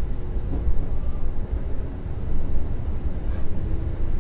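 Kintetsu 2050 series commuter train running, heard from inside the car: a steady low rumble of wheels on rail, with a few faint clicks.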